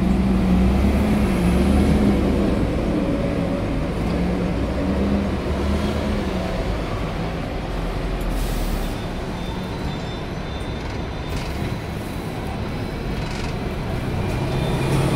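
Hong Kong double-decker tram running on its street tracks: a steady rumble of wheels on rail, with the motor's hum wavering up and down in pitch over the first several seconds. A brief hiss comes about eight seconds in.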